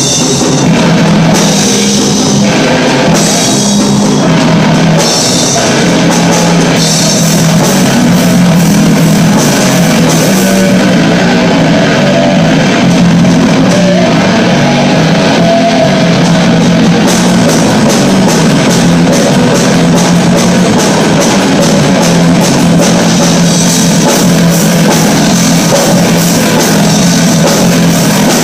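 A heavy metal band playing live and loud: distorted electric guitars over a drum kit. Over the first several seconds the playing comes in short stop-start hits, then it runs on without a break.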